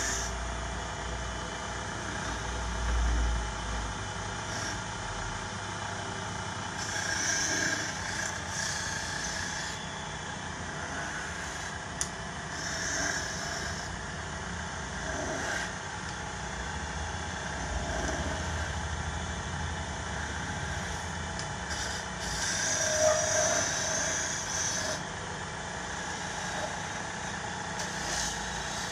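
Electric wood lathe running steadily, with a hand chisel cutting into the spinning wood in repeated passes that come every few seconds as a louder scraping.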